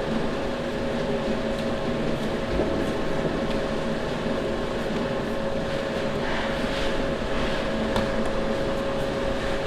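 Steady machine hum, a fan or motor running with a constant drone, with a few faint clicks and knocks of work going on.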